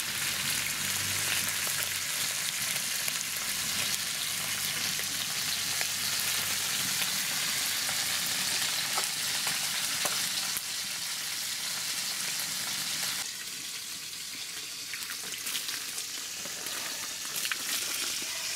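Whole Indian mackerel sizzling steadily as they fry in hot oil in a wide iron kadai, with a few light clicks of a metal turner. The sizzle drops in level a little past halfway.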